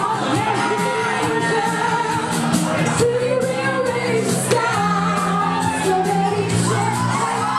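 Pop music with singing over a steady beat and a repeating bass line.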